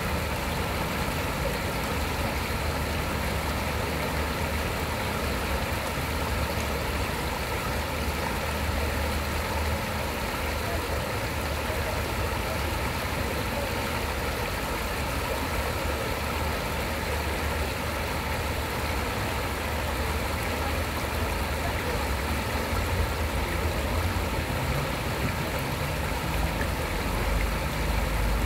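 Shallow stream flowing over rocks and through a small riffle: a steady, even rush of water, with a low rumble underneath that swells slightly near the end.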